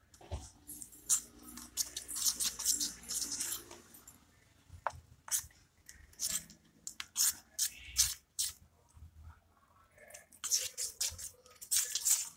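A spoon stirring thick, wet flour batter in a small steel bowl: squelching and the spoon scraping and clicking against the steel, in three spells with short pauses between.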